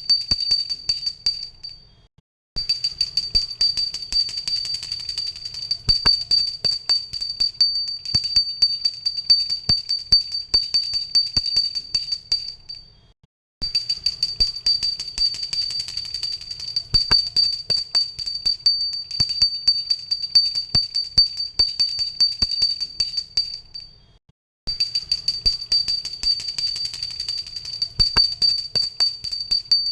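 Puja hand bell rung rapidly and continuously, its clapper striking many times a second over a steady high ring. The ringing fades out and stops briefly three times before starting again.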